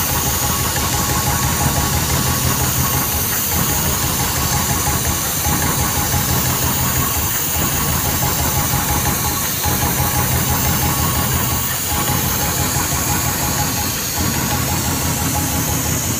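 CNC pattern hole punching machine punching shoe-upper material: a rapid, continuous clatter of punch strokes with a steady hiss, keeping up an even rhythm.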